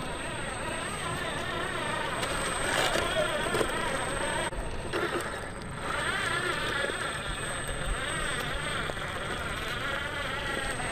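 RC4WD Desert Runner 1/10-scale RC truck's electric motor and geartrain whining as it drives, the pitch wavering up and down with the throttle and easing off briefly about four and a half seconds in.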